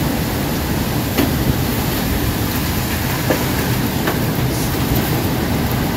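Extreme storm winds, which the filmer puts at about 75 to 80 mph, blowing as a loud, deep, unbroken rush, with a few faint knocks from flying debris about a second in and again past three and four seconds.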